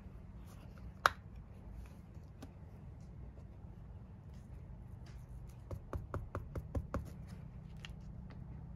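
A single sharp plastic snap about a second in as the Shachihata Iromoyou ink pad's case is opened, then a quick run of light taps as a wooden-handled rubber stamp is dabbed on the ink pad and pressed onto paper.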